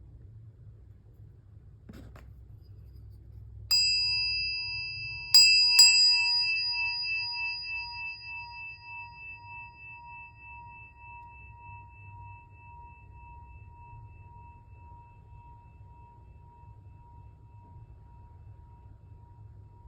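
Small Japanese bronze meditation bell, about 7.7 cm across, struck three times: once, then twice in quick succession a second and a half later. It rings with several clear tones that fade slowly; the lowest one hums on for over fifteen seconds. A faint tap comes just before the first strike.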